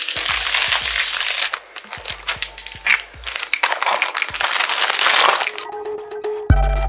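Clear plastic vacuum storage bag crinkling and rustling in spurts as clothes are pressed down inside it, over background music that comes forward near the end.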